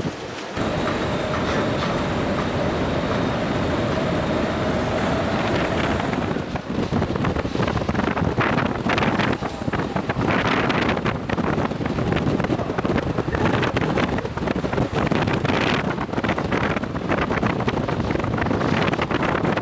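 A ferry's whistle sounds one long steady note for about five seconds, a farewell blast traded between Seikan ferries. Heavy wind buffets the microphone throughout.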